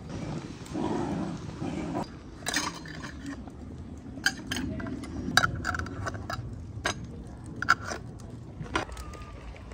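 Red metal twist-off lids clinking against glass jars as they are set on and screwed down: a string of sharp clinks starting about two seconds in.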